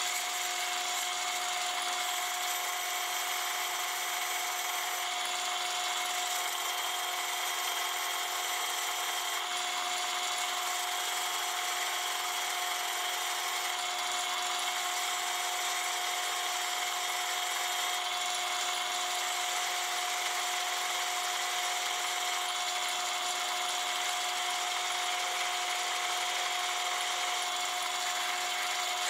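Metal lathe running with a steady whine while the cutting tool takes a facing cut across the end of a naval brass gear blank, the cut adding a constant hiss.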